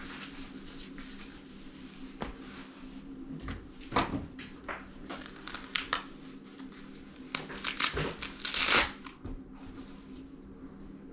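Handling noise from a neoprene case and its contents being packed. There are scattered knocks and rustles, then a louder rubbing swish about eight and a half seconds in, over a faint steady low hum.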